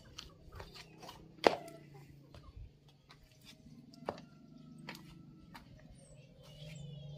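Footsteps on a dirt and stone path, a string of scattered clicks and scuffs with one sharp knock about a second and a half in, over a low steady hum. A few short high chirps near the end.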